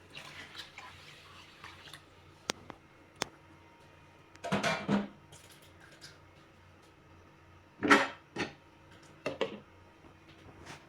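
Kitchen dishes and utensils clinking and clattering in several short bursts, with a few single sharp clicks between them; the loudest clatter comes about two-thirds of the way through.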